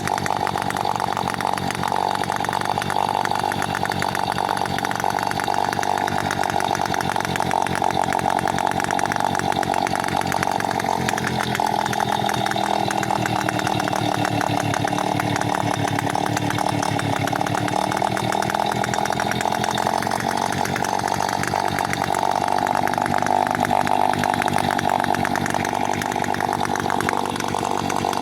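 Restored Peugeot 103 moped's 50 cc single-cylinder two-stroke engine running on a working test, holding a steady note. Its pitch dips slightly and comes back up midway.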